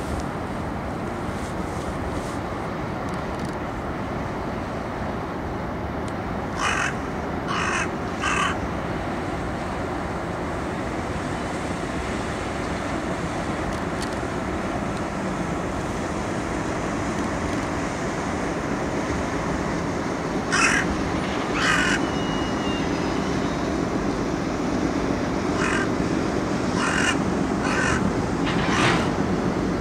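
Carrion crow cawing in short hoarse calls: three about seven seconds in, two more about twenty-one seconds in, and four near the end, over a steady low background rumble.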